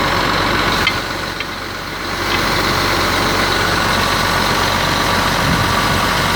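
Truck engine idling with a steady low hum, dipping briefly in level about a second in, with a few faint clicks.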